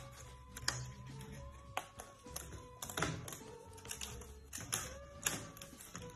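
Irregular light clicks and clacks of thin laser-cut wooden sheets being handled on a cutting mat, with parts pressed out of the sheet. Faint background music underneath.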